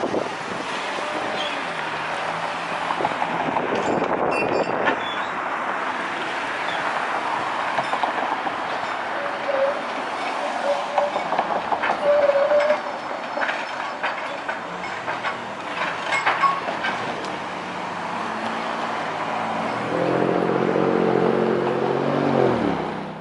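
SEPTA Kawasaki light-rail trolley running through a street intersection amid city traffic. There are short squeals from about nine to thirteen seconds in as it takes the curved track, and a road vehicle's engine hums near the end.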